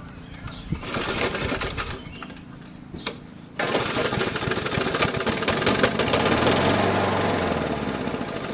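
Briggs & Stratton 3.5 hp engine on an old Snapper push mower being pull-started: a short burst about a second in, then it catches suddenly about three and a half seconds in and runs, its speed sagging toward the end. It is running on gas poured into the cylinder, and the owner blames carburation: the carburetor needs cleaning.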